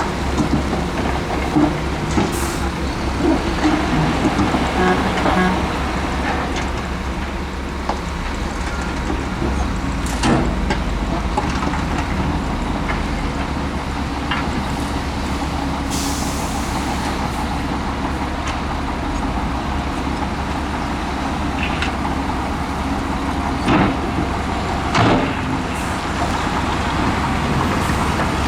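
Heavy earthmoving machinery's diesel engines running steadily, with occasional sharp clanks and knocks and a brief hiss about halfway through.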